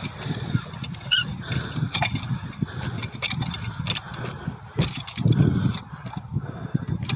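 Metal tool clinking and scraping against a stuck engine thermostat as it is pried at, with irregular clicks and knocks and one ringing metallic clink about a second in, over a low rumble.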